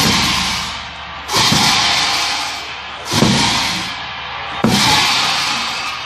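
Large Tibetan hand cymbals clashed by the dancing monks together with a drum beat, a crash about every second and a half, each one ringing out and fading before the next.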